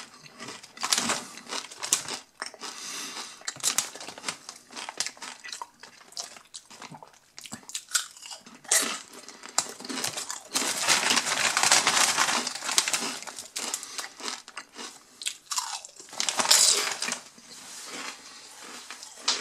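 Crunchy potato chips being bitten and chewed with a run of crisp crunches, with the foil-lined chip bag crinkling as it is handled around the middle.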